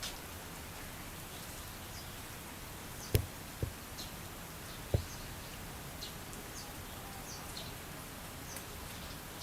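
Steady outdoor background hiss with short high chirps scattered through it. Three sharp knocks come about three seconds in, half a second later, and near five seconds.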